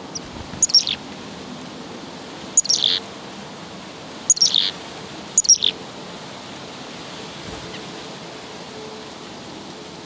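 Black-capped chickadee giving its scolding call at another chickadee: four short, quick bursts of notes, each falling in pitch, in the first six seconds.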